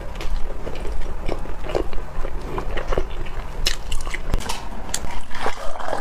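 Close-miked biting and chewing of soft bread, with irregular wet mouth clicks and smacks.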